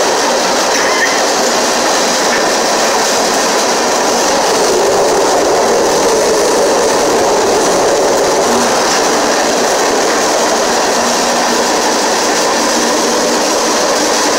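Freight train rolling along the line, heard from aboard an open freight car: a steady, loud noise of steel wheels running on the rails.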